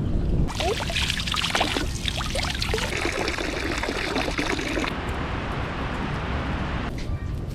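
Liquid being poured, splashing and trickling, with small gurgles; it settles into an even rush from about five seconds in.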